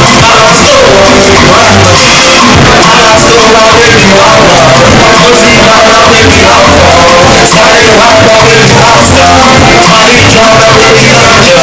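Loud music with a singing voice over a band and a heavy bass line.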